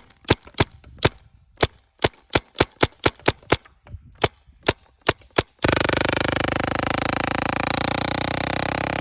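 Tippmann Stormer CO2 paintball gun firing about sixteen sharp single shots in quick irregular succession. About five and a half seconds in, these give way to a loud, steady, rapidly pulsing burp from the gun: the sign that its CO2 tank is running empty.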